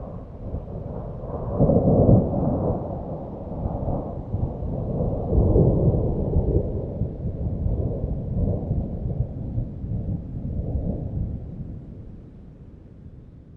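Thunder rumbling in a storm sound effect: a long low rumble with loud peaks about two seconds in and again around five to six seconds, then fading away toward the end.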